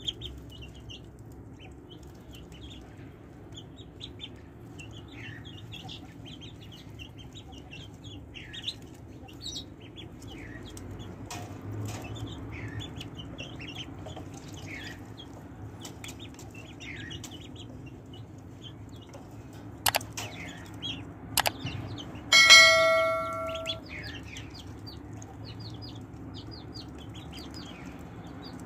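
Ducklings peeping on and off, short high falling peeps. About twenty seconds in come two sharp clicks, then a loud bell-like ring that fades away over about a second.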